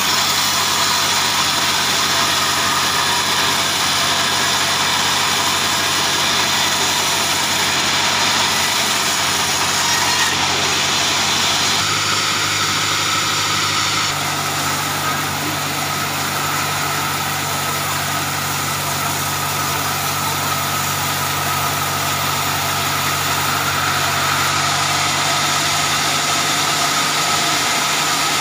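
Log band sawmill running, a steady machine hum from its drive with a constant whirr of the blade. The hum shifts slightly about twelve seconds in and again about two seconds later.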